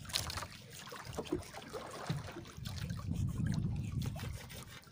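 Sea water lapping and sloshing against the hull of a small outrigger canoe, louder in the second half, with small knife taps and scrapes on a wooden paddle blade as the flesh is cut from a fish.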